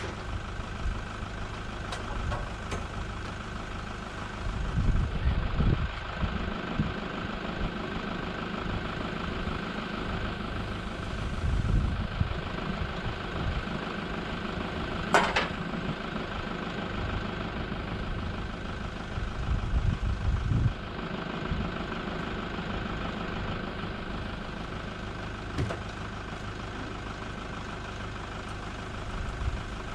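A steady, engine-like idling drone with low gusts of wind buffeting the microphone now and then, and a single sharp click about halfway through.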